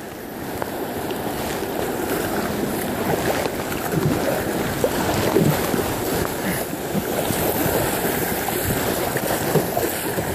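River water rushing through a riffle around a kayak, with a few sharp splashes from paddle strokes.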